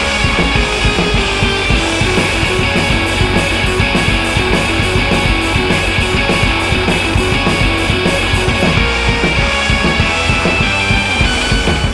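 Background rock music with distorted guitar and a drum kit keeping a steady, fast beat.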